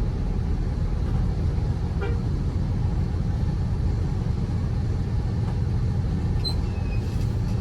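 Steady low rumble of a bus engine running, with road noise.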